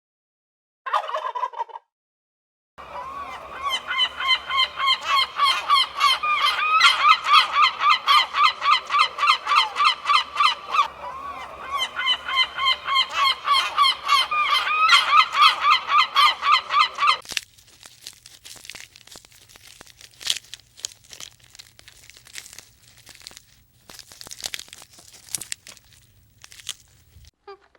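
A flock of domestic fowl calling in a rapid, dense run of repeated notes after a short single call. It stops abruptly, leaving faint scattered clicks and rustles.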